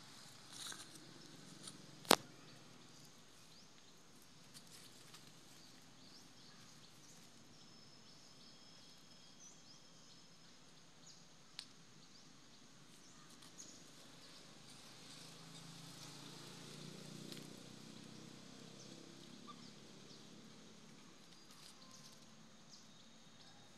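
Faint outdoor ambience: scattered soft rustles and light clicks, with one sharp click about two seconds in as the loudest sound, and faint high chirps in the background. A soft low rumble swells a little past the middle.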